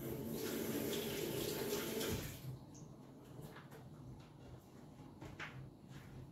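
Kitchen tap running while hands are washed under it, shut off after about two seconds; then a few faint clicks and knocks.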